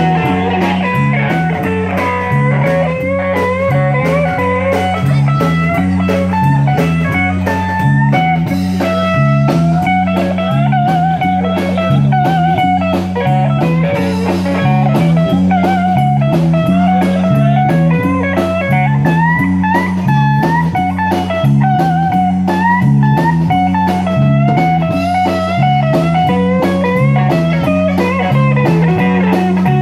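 Live band playing a blues number: an electric guitar solos with bent notes over a repeating bass line and steady drums.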